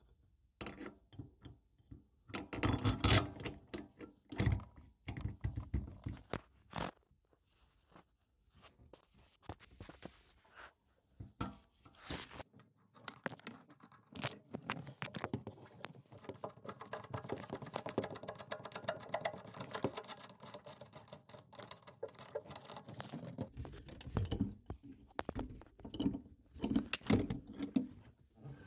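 Hand work with metal tools on a mixer tap's fixing nut under a sink: clicks, knocks and scraping of a tube wrench and spanner on the nut, with rustling of gloved hands and braided hoses. A long stretch of close scraping and rustling fills the middle, with a cluster of louder knocks near the end.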